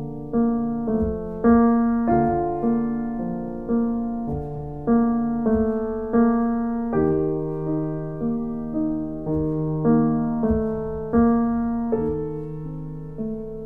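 Background music: a gentle solo piano piece, single notes and chords struck at an even, unhurried pace and left to ring and fade.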